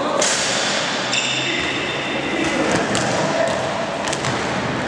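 Basketball game noise in a reverberant gym: a basketball bouncing on the court over a steady din of players' and spectators' voices, with a few short high squeaks about a second in.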